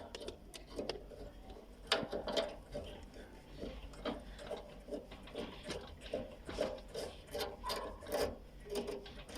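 Irregular clicks and knocks of hand tools and small metal parts being handled while working on a Fagor gas water heater's water group.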